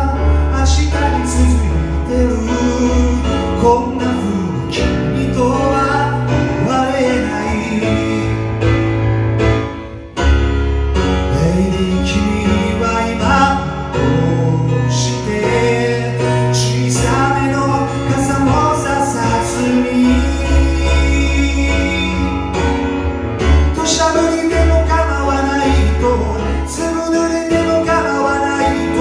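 Live solo performance on a Roland RD-700 stage piano, with a man singing over the playing. The music drops away briefly about ten seconds in, then carries on.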